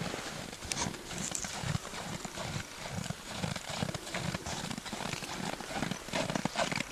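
Paint horse's hooves crunching through snow as it moves under saddle, a run of irregular soft footfalls.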